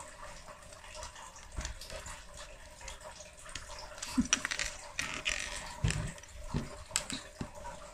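Light clicks, taps and a short scrape of small plastic parts of a hydrogen water bottle being handled during disassembly, with a soft knock a little past the middle.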